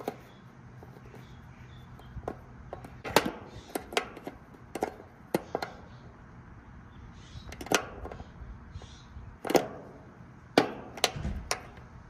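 Metal shaft of a screwdriver clicking against the terminals of an air-conditioner condenser's run capacitor as the terminals are shorted together to discharge it: about eight sharp clicks at irregular spacing.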